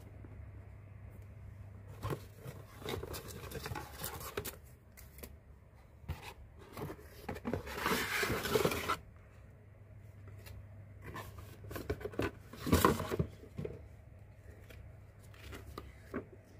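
Cardboard box and paper packaging being handled: rustling, scraping and sliding in irregular bursts, the loudest about eight seconds in and another near thirteen seconds, over a low steady hum.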